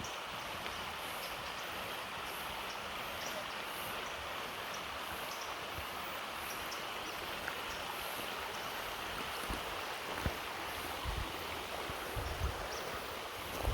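Rushing water of a creek and waterfall: a steady, even hiss, with faint repeating high chirps above it and a few low bumps near the end.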